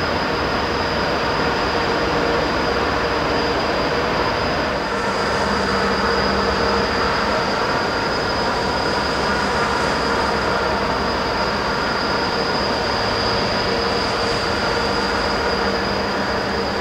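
Steady, loud mechanical drone of the passing tug-barge's diesel engines, with several held machinery tones over a continuous roar.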